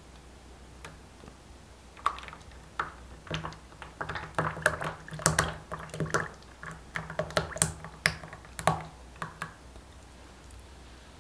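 A run of irregular clicks and light taps, starting about two seconds in and dying away near the end.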